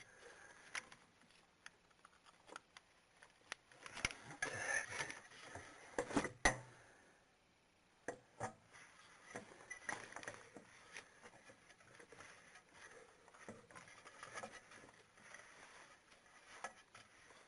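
Scattered light knocks and clicks as a radiator fan shroud and tools are handled in the engine bay, with a couple of sharper knocks about four and six seconds in.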